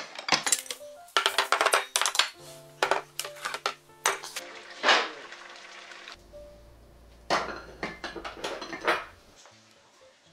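Ceramic bowls and dishes clinking and knocking against a wooden tray and table as a meal is set out, several quick clatters in the first few seconds, over soft background music.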